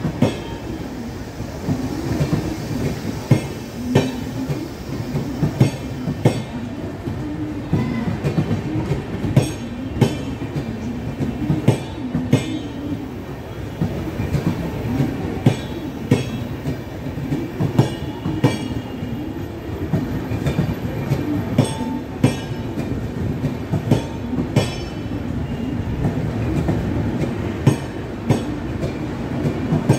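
Maharashtra Sampark Kranti Express's LHB passenger coaches rolling past on departure: a steady low rumble of wheels on rail, with sharp clickety-clack strikes over the rail joints about once a second.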